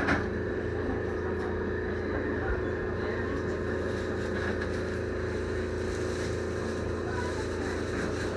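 Steady electrical hum of a standing ET127 series electric train's onboard equipment: a low drone under several steady tones, with no change in pitch.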